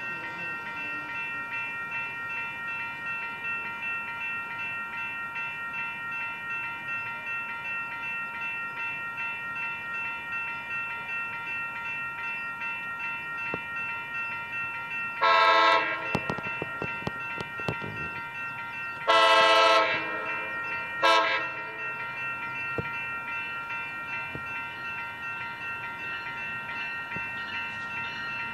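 Train horn of an approaching Amtrak Capitol Corridor passenger train sounding three blasts: a short one, a longer one and a short one. A steady high ringing tone runs underneath.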